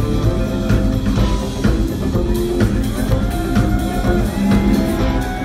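Live rock band playing loudly: electric and acoustic guitars, bass guitar and drum kit together.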